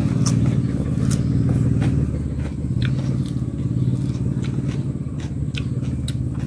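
An engine running steadily with a constant drone, over close crunching and chewing clicks as raw cucumber and grilled fish are bitten and eaten.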